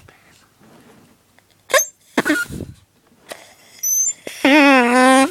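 Drinking-straw reed horn being blown: a couple of short squeaks and a breathy puff, then a loud buzzing honk near the end, held for almost a second with a slightly wavering pitch.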